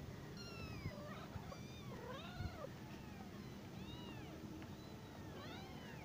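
Young kittens mewing, a string of thin, high-pitched calls that rise and fall, some overlapping, every second or so.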